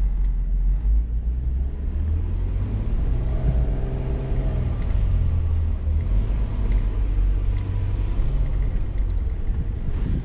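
Jeep Wrangler Rubicon running at crawling speed on an off-road trail, a steady low rumble. Around the middle its note briefly rises and falls.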